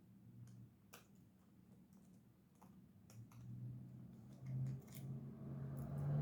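Scattered small clicks and taps of knife parts and small tools being handled during the assembly of a Microtech MSI folding knife, over a low hum that grows louder in the second half.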